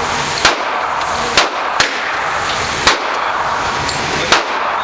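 Gunshots at an indoor shooting range: five sharp single reports at uneven intervals over a steady rushing background.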